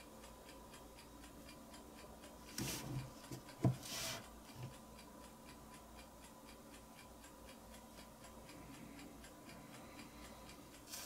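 Quiet room tone with a faint, even ticking throughout, broken about three to four seconds in by a few brief rustles and one short knock from fingers handling a small rubber O-ring and lighter part.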